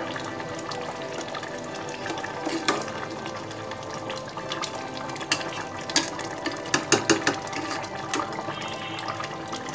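A metal spatula stirs a simmering pot of chicken and bottle gourd curry over a steady bubbling. It knocks and scrapes against the metal pot several times, mostly in the middle of the stretch.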